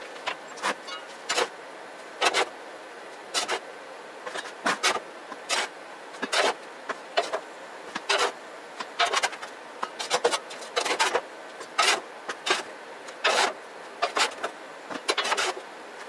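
Small ash shovel scraping ash off the wood stove's firebox floor and tipping it into a bucket, in repeated short, irregular scrapes about one or two a second.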